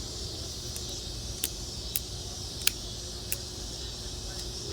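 A few short, sharp clicks from handling a Milwaukee M18 Fuel impact driver, four of them at irregular intervals, over a steady background hiss.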